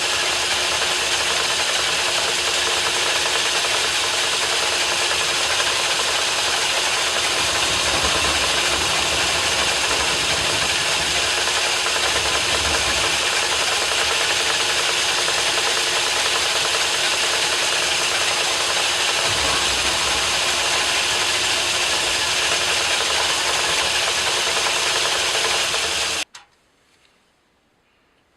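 Metal lathe running under power, taking a turning cut on a steel bar: a steady mechanical running noise with a hiss over it, which cuts off abruptly near the end.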